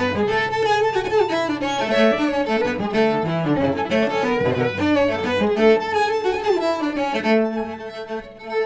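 A fiddle and a cello playing a reel together: the fiddle bows the quick melody while the cello bows lower notes beneath it.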